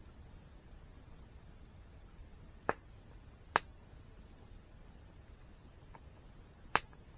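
Campfire wood crackling: three sharp pops, about two and a half seconds in, a second later and near the end, with a few fainter snaps over a steady low hiss.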